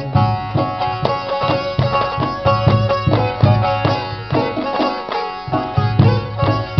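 Background music: an instrumental passage of a folk song, with a plucked string instrument playing over a steady hand-drum beat and no voice.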